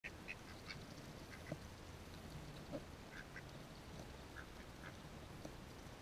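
Ducks grazing on grass close by: many short, scattered clicks and snaps of their bills nibbling and plucking the grass, with two louder ones about a second and a half and nearly three seconds in.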